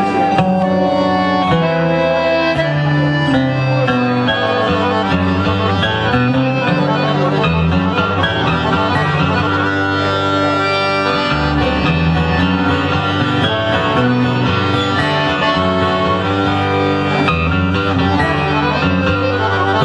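A piano accordion and an acoustic guitar playing a tune together live through a PA, the bass notes moving every second or so.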